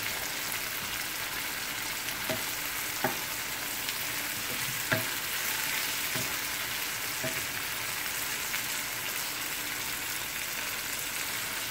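Sliced tomatoes, bell peppers and onion sizzling in oil in a frying pan, a steady hiss, with a few light knocks of a wooden spatula stirring against the pan.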